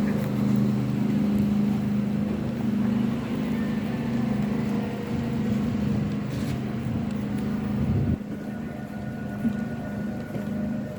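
A steady low mechanical drone with a hum, which drops in level about eight seconds in.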